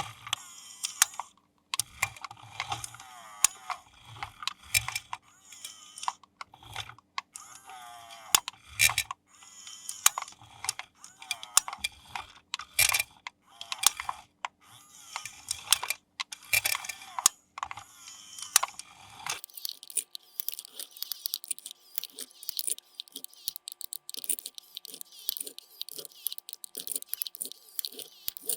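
Plastic toy parts and packaging handled with irregular clicks and crinkling. About two-thirds of the way through, a small battery-powered toy's geared electric motor starts running with a steady whine and a rapid clatter of plastic gears.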